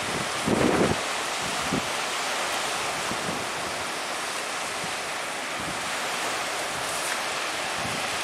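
Strong sea wind blowing over the microphone with surf, a steady rushing noise. Gusts buffet the microphone with low rumbles, the loudest just under a second in.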